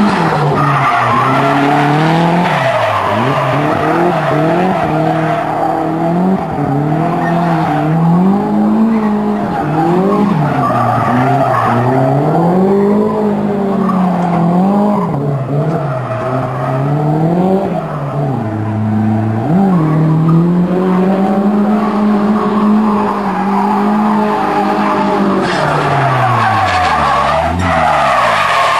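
A drift car's engine revving hard, its pitch swinging up and down again and again over the hiss and squeal of tyres sliding sideways through continuous drifts. Near the end the revs fall away low for a moment before picking up again.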